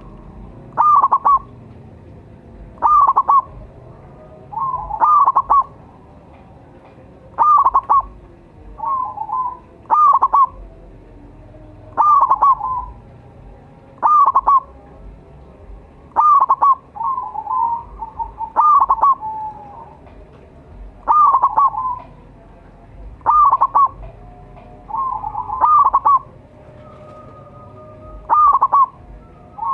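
Zebra dove (perkutut) cooing: short, rapid phrases of staccato coo notes repeated about every two seconds, the dove's call used to lure other doves into answering.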